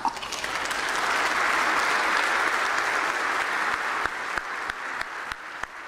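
Congregation applauding. It builds up over the first second, holds, then slowly dies down over the last couple of seconds.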